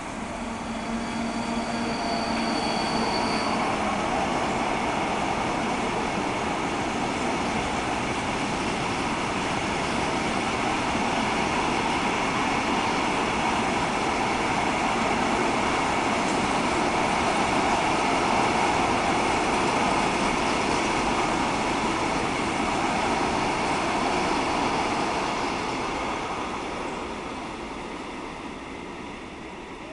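Freight train of open box wagons rolling past on the main line, a steady rumble and rattle of steel wheels on rail. A faint high whine sounds in the first few seconds, and the noise fades near the end as the last wagons go by.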